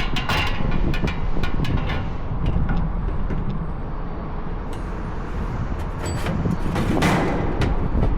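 Scattered clicks and knocks from hand work on a rooftop unit's condenser fan assembly, over a steady low rumble, with a short rushing hiss about seven seconds in.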